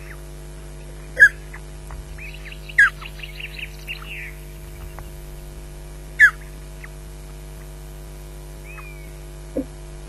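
Osprey on its nest giving short, loud, downward-slurred whistled calls, three of them about a second, three and six seconds in, with a quick run of softer chirps between the first two. A steady low electrical hum lies underneath.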